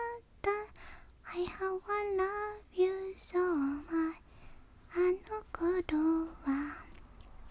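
A woman singing quietly with no accompaniment, in a string of short held notes that stop shortly before the end.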